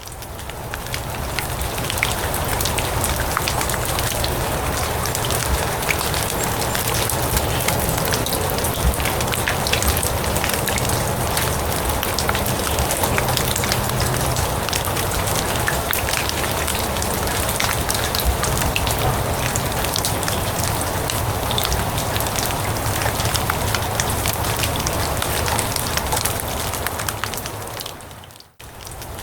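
Steady rain falling on grass and leaves: a dense hiss of drops with many fine crackling taps. The sound fades in at the start and cuts out briefly near the end before returning.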